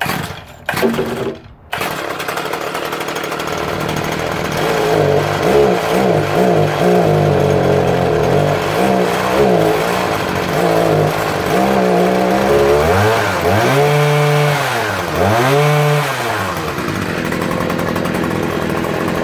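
Stihl HS81T hedge trimmer's small two-stroke engine sputtering briefly, then catching about two seconds in and running, freshly started on choke. It is revved up and down repeatedly, with two big revs near the end of the run, before settling back to a steadier idle.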